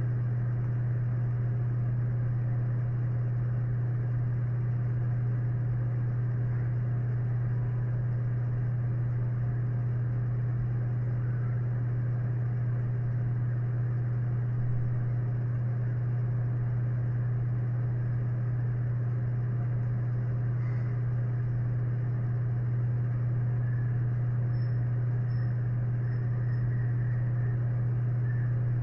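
Steady low electrical hum picked up by the microphone, unchanging and with no speech over it; the speaker puts the hum down to a newly fitted microphone.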